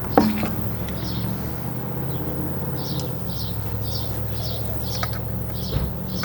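A steady low mechanical hum, like a motor running, with a small bird chirping over it about twice a second.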